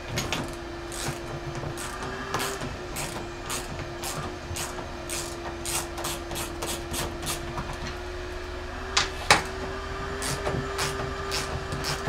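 Hand ratchet with a 10 mm socket working bolts loose: a run of short ratchet clicks, about two a second, with two sharper, louder clicks about nine seconds in. A steady hum runs underneath.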